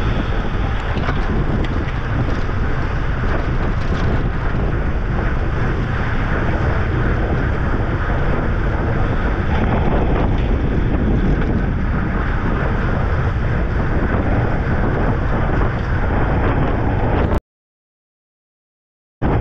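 Steady wind rush buffeting a racing cyclist's camera microphone at speed, with road noise underneath. The sound drops out to dead silence for about two seconds near the end, then comes back.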